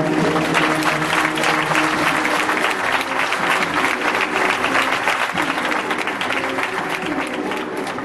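An audience applauding as the music ends, the clapping slowly fading.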